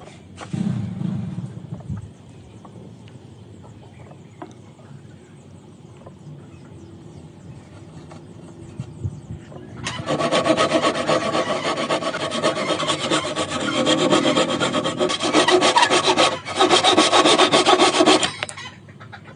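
Wood surface being sanded: faint handling for the first half, then from about halfway a loud, steady abrasive rubbing that breaks off for a moment and stops shortly before the end.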